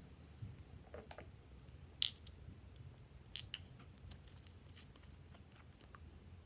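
Scattered sharp plastic clicks and taps as a small plastic nail-polish bottle is handled and its brush cap is twisted off. The loudest click comes about two seconds in, and a cluster follows a second or so later.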